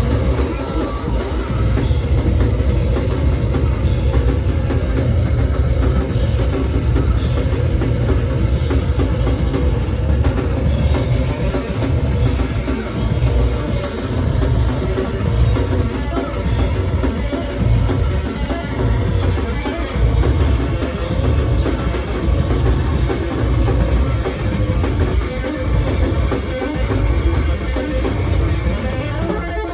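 Loud live noise rock from a drum kit pounding without let-up under a heavily distorted bass guitar, dense and thick in the low end.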